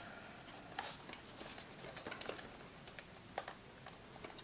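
Faint handling noise: a few scattered light clicks and rustles as the folded DJI Mavic 3 drone and its flexible storage cover are turned over and the cover's strap is undone.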